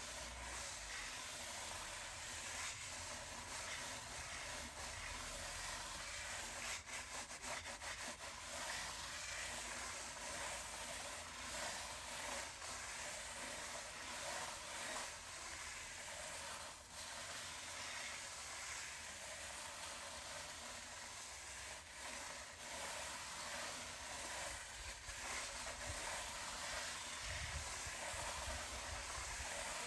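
Brush scrubbing a chair, a steady rubbing hiss of bristles, with a quick run of small clicks about seven seconds in.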